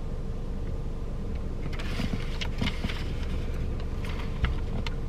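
Steady low hum inside a stopped car, with a few faint clicks and rustles in the second half.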